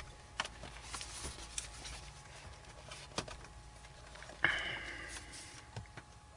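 Scattered light clicks and taps of a small screwdriver and screw being driven into a laptop's bottom cover, with one short squeak about four and a half seconds in.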